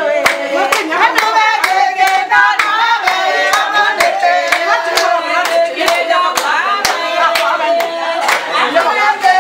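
A group of women singing together while clapping their hands in a steady rhythm, about two claps a second.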